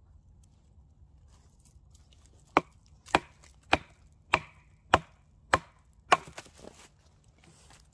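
A large bushcraft knife being driven down into the end grain of a short log round to split off a thin board: seven sharp wooden knocks, about one every 0.6 seconds, the last trailing into a brief crackle as the wood gives.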